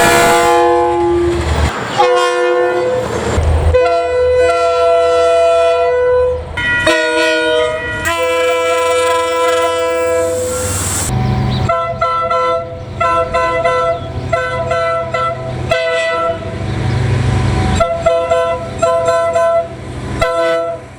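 Locomotive air horns sounding a string of blasts: several longer horn chords in the first half, then many short toots in quick groups in the second half, over the low rumble of the train.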